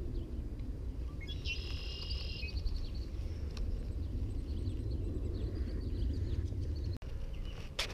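Pondside outdoor ambience: a steady low rumble of wind on the microphone, with a bird's short, rapid trilled song about a second and a half in.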